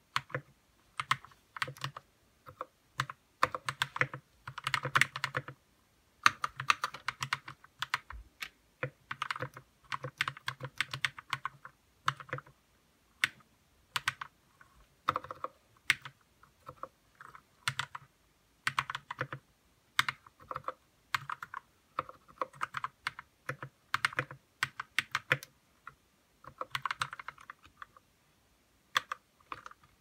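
Royal Kludge RK61 mechanical keyboard being typed on: its red linear switches and stabilizers, lubed with Krytox 205g0, give runs of rapid keystrokes in bursts with short pauses between, including a longer pause near the end.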